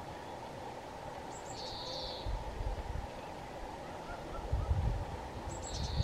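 A songbird in spring woodland sings a short phrase twice, a few high notes followed by a quick trill, over a steady low background noise. Low gusts of wind hit the microphone in the second half.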